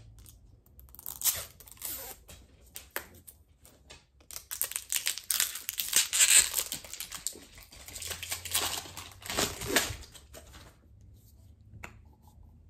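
A plastic seal being torn and peeled off the cap of a body cleanser bottle, in scratchy, crinkling bursts that are densest in the middle and stop near the end.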